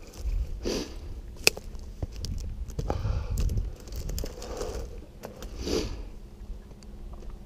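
Footsteps and brush crunching as a person walks through dry scrub, with soft breaths every second or two, scattered sharp clicks, and a low wind rumble on the microphone.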